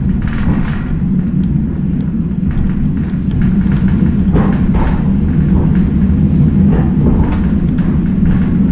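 Steady low rumble of a DR1B diesel train heard from inside its passenger car while under way, with faint irregular clicks and knocks from the running gear.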